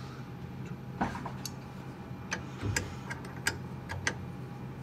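Scattered metal clicks and taps of wrenches working the Makita router's collet nut while the bit is being changed, over a steady low hum.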